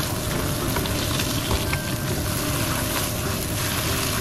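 Chopped greens sizzling steadily as they are stir-fried in a nonstick wok, with a wooden spatula tossing them and knocking against the pan a few times.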